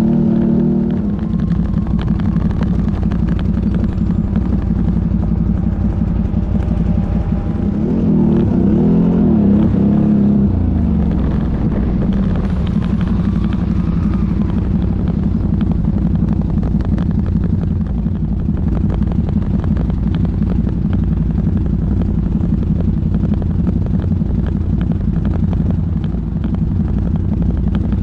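ATV engine running while riding, a steady drone whose revs rise and fall briefly about eight to ten seconds in.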